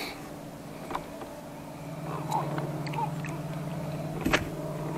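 A freshly landed blue catfish being handled aboard a boat with a lip-grip tool: scattered clicks and knocks, the loudest about four seconds in. A steady low hum starts about two seconds in.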